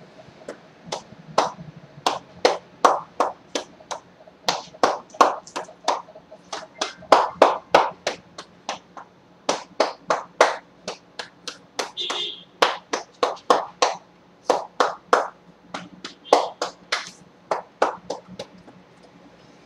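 Percussive massage strokes: hands slapping a person's back and shoulders through a shirt, sharp smacks about twice a second, in runs broken by brief pauses.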